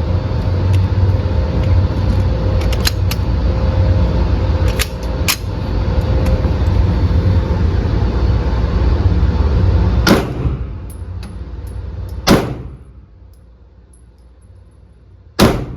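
Three 9mm Glock pistol shots, a second and a half to three seconds apart, in the second half. Before them a steady low rumble runs; it dies away after the first shot. Fainter sharp cracks come a few seconds in.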